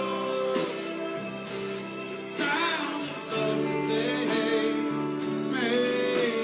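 A live band playing, with guitars holding chords under a sung melody line. The melody slides in pitch about two and a half seconds in and again near the end.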